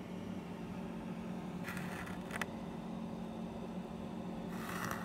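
Steady low mechanical hum of room ambience, with two brief hissing sounds, one about two seconds in and one near the end.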